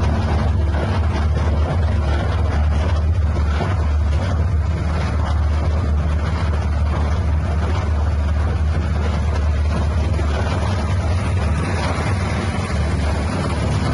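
Livestock feed mixer machine running steadily, with a constant low drone from its drive.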